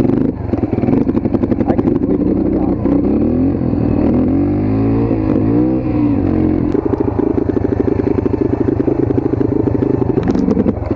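Dirt bike engine running while ridden, revving up and down a few seconds in, then holding a steady pitch.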